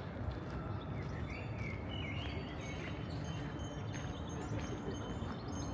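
City background sound: a steady low rumble of distant traffic with small birds chirping over it, a brief run of chirps about two seconds in.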